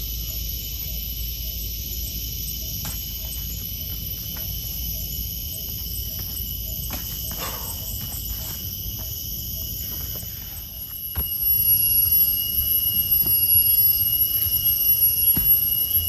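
A steady, high-pitched chorus of forest insects, over a low wind rumble on the microphone and a few light clicks. The chorus gets louder about eleven seconds in.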